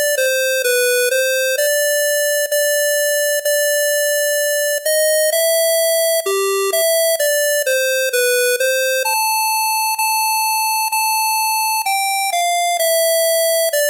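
Synthesized ringtone melody from a MediaTek chipset feature phone's built-in synth: a simple tune of steady electronic tones, note after note, with a long held higher note about nine seconds in.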